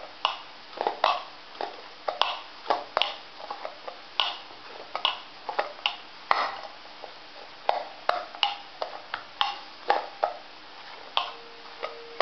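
Hands kneading a ball of stiff puri dough in a bowl: soft, irregular knocks and taps of the dough pressed against the bowl, which shifts on the counter, about one or two a second.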